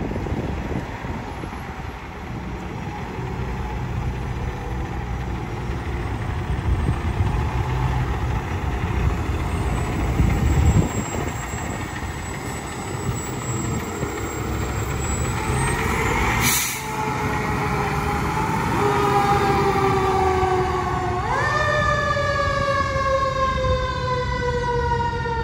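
Fire engine's diesel engine running as the rig pulls out onto the street, with a short sharp sound about two-thirds of the way through. Its siren then wails for the last several seconds, winding up quickly and falling slowly in pitch.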